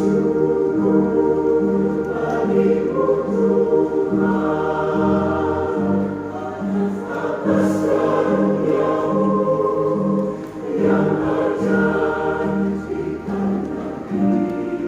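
Mixed church choir singing a sacred piece in parts, over an accompaniment that repeats a short low note about one and a half times a second.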